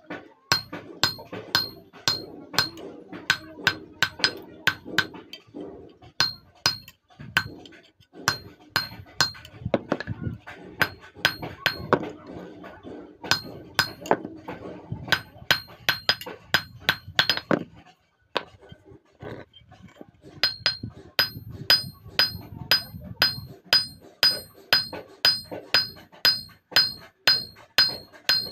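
Hand hammer striking a thin steel strip laid on a railway-rail anvil, cold-forging a small sickle blade without heating it. The blows come fast and even, about three a second, each with a short metallic ring, with a brief pause about two-thirds of the way through.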